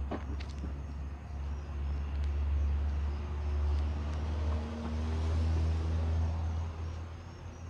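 Low rumble of a vehicle engine running, growing louder through the middle and easing off near the end. A few sharp knocks come right at the start as the dog strikes the basketball on the concrete.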